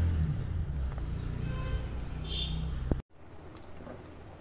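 A bird chirps about two seconds in over a low steady rumble. After a sudden cut, a pan of horse-gram phaana bubbles faintly on the boil.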